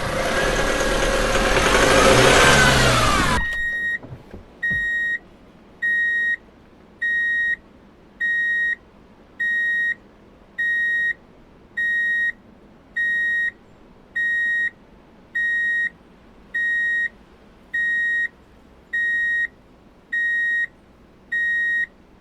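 A loud rushing sound with a tone that rises and falls, lasting about three seconds, then an electronic beeper sounding evenly spaced identical high beeps, about one every second and a quarter, like a vehicle's reversing alarm.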